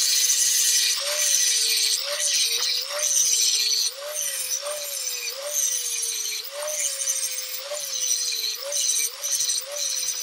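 Angle grinder with an abrasive disc grinding steel, taking down the punched staking marks on a lower ball joint's large retaining nut so the nut can be unscrewed. The motor's whine swings up in pitch and back again about twice a second as the disc is worked against the metal, over a loud hiss of grinding.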